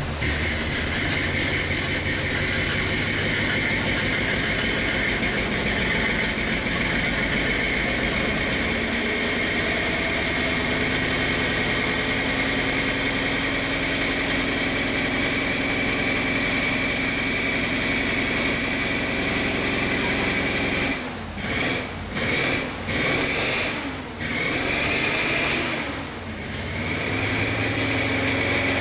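1965 Chevrolet Corvette's V8 engine running steadily with a growl. Several short dips in loudness come about three-quarters of the way through.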